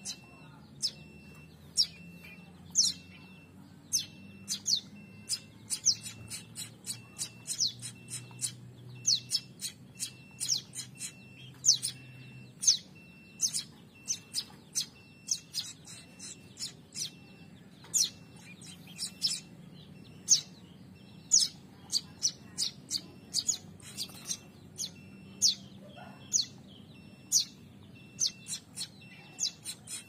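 Prenjak (prinia) fledglings giving short, high, downward-sweeping chirps over and over, about two or three a second, the begging calls of chicks with their gapes open for food.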